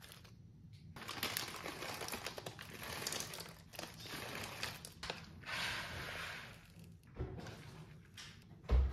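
Crinkly plastic food packets rustling and crackling as they are handled, in uneven bursts for several seconds, then a single dull knock near the end.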